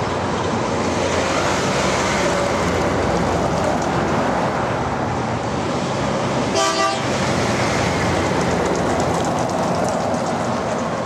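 Oshkosh 1070F heavy equipment transporter tractor units hauling loaded low-loader trailers pass close by with steady heavy diesel and tyre noise. A short horn toot sounds about six and a half seconds in.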